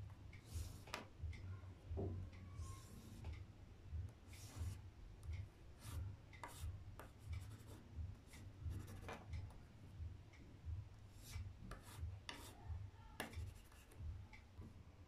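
A white pastel stick scratching and rubbing on black paper in short, irregular strokes as stars are dabbed in. Under it runs a regular soft low tick, about twice a second.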